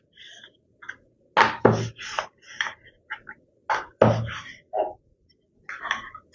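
Wooden rolling pin rolling out dough on a wooden board: a series of irregular knocks and rolling scrapes as the pin is pushed back and forth, loudest about a second and a half in and again about four seconds in.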